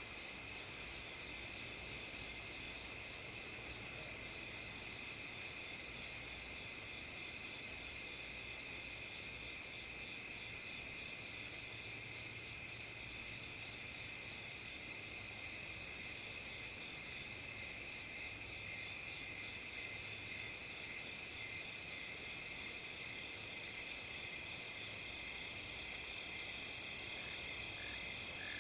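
Chorus of autumn crickets, bell crickets among them, several high-pitched songs overlapping in steady pulsing trills. Near the end a frog starts calling in short repeated notes.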